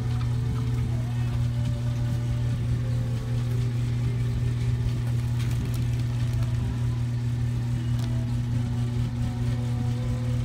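A steady low hum throughout, with faint crinkles of a plastic bag as a fog lamp housing is unwrapped and handled.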